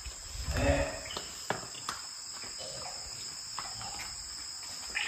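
Steady, high-pitched drone of insects in the surrounding forest. About half a second in there is a brief, louder, muffled sound, and a few faint clicks follow.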